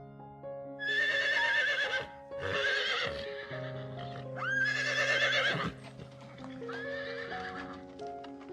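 Horse whinnying four times, each call rising at the start and then quavering, over background music with a slow melody.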